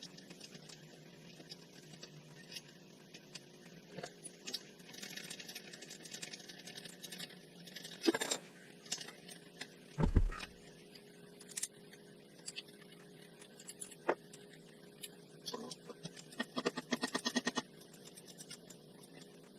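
Hand tools and metal parts clinking and scraping during work on an ATV's front wheel hub, with two heavier knocks in the middle and a quick run of rapid, evenly spaced clicks near the end.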